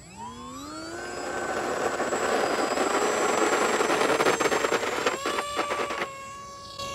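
Electric RC plane's brushless motor and pusher propeller throttling up for a takeoff run: a whine that rises in pitch over the first two seconds, then holds at full throttle as the model rolls and lifts off. It gets quieter about six seconds in as the plane climbs away.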